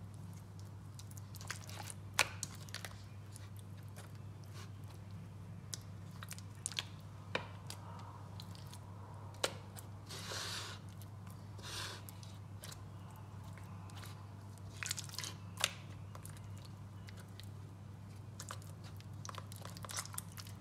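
A hand smearing and pressing thick, wet masala paste onto king fish steaks in a bowl: soft squelching and smearing with a few sharp clicks. A steady low hum runs underneath.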